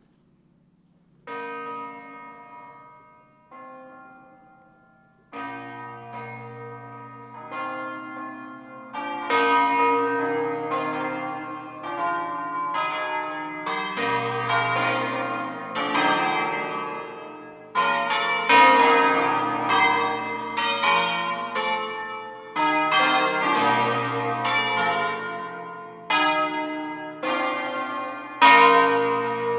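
Full-circle swinging ring of eight church bells (Fratelli Barigozzi, Milan, 1894, tenor in B-flat) starting a solemn 'concerto'. A few single strokes come first, then more bells join. From about nine seconds in, all are ringing together in quick, overlapping strokes that hum on after each blow.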